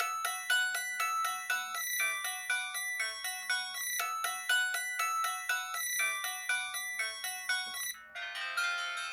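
Samsung Anycall SPH-V9500 flip phone playing a built-in ringtone: a quick, bouncy melody of bright bell-like notes. About eight seconds in it breaks off briefly and a different tune starts.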